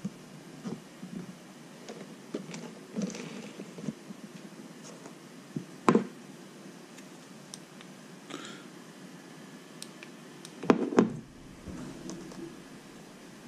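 Light scattered clicks and taps of tweezers and tiny metal shock parts being handled on a paper instruction booklet, with a sharper click about six seconds in and two louder knocks near the end.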